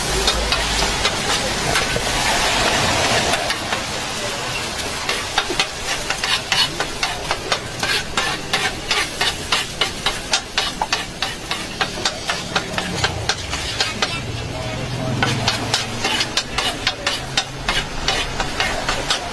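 Metal spatula chopping and scraping eggs and minced meat on a flat steel griddle: a rapid run of sharp clacks over the steady hiss of the food frying. The hiss is strongest early on, and the clacks come thickest through the middle and again near the end.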